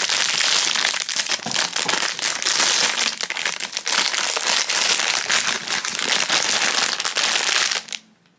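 Foil mystery-plush bag crinkling continuously as hands pull it open and work the plush out, with dense quick crackles; it stops abruptly just before the end.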